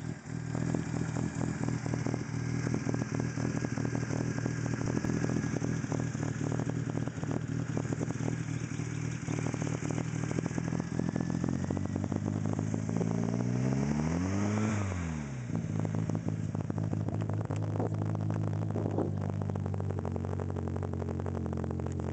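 Car engine idling with a clattering tick, revved once about two-thirds of the way through, its pitch rising and then falling back. The engine runs sluggishly after standing unused over the winter.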